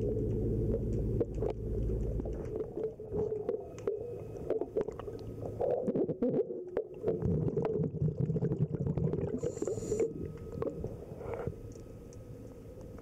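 Muffled underwater noise heard through a camera housing: a dense low rumble with scattered clicks and knocks from handling. A low steady hum stops about two and a half seconds in, and a short hiss comes near ten seconds in.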